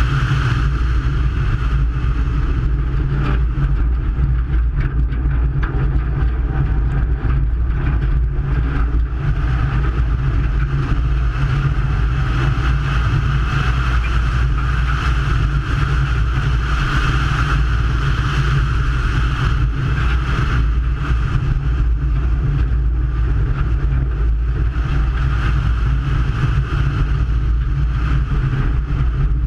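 Subaru WRX rally car's turbocharged flat-four engine running hard at speed, loud and steady with no let-up.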